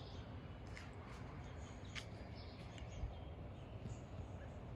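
Outdoor ambience: a steady low background hum with a few faint, short bird chirps scattered through it.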